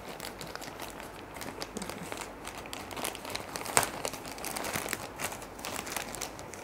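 Polythene courier mailer bag crinkling and crackling as it is cut open with scissors and handled, with scattered sharp clicks, one sharper crack about four seconds in.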